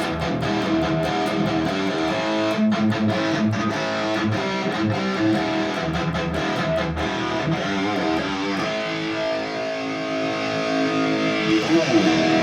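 Distorted electric guitar playing rhythm chords through a Valeton GP-200 modeler on a Soldano amp model, heard in the room through two Headrush 108 active monitors in stereo. The chords are strummed and palm-picked, with one chord left ringing for a few seconds past the middle. The tone sounds a little bit harsh, with top end that has not yet been cut.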